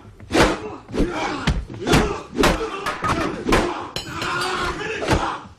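Brawl sound: heavy punches and blows landing in quick succession, about two a second, with grunts and shouts from the fighters between the hits.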